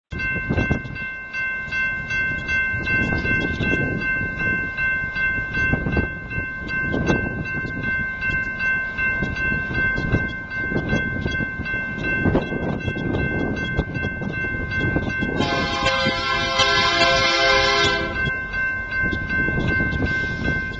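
Grade-crossing bell ringing steadily as a Union Pacific freight approaches, over a low rumble. About three-quarters of the way through, the locomotive's air horn sounds one long blast of a few seconds.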